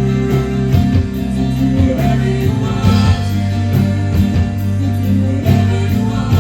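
Worship band playing an instrumental passage: guitar over held bass notes, with a steady beat.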